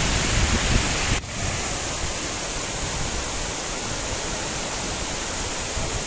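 Steady rushing roar of a tall waterfall's falling water. About a second in the sound breaks off for a moment, then goes on slightly quieter, with less low rumble.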